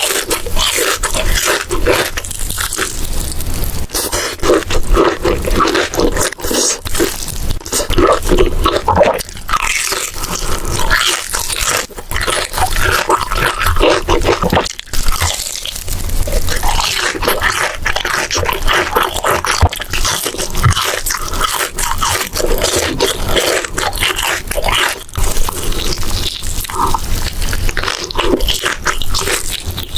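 Close-miked eating: a stream of loud crunching bites and chewing.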